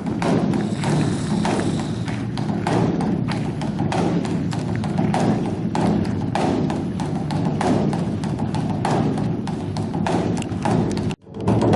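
Background music with a dense percussive beat, cutting out for a moment near the end.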